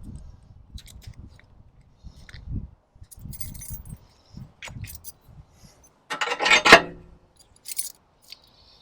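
Small metal parts clinking, rattling and scraping as they are handled, with a louder rattle about six seconds in.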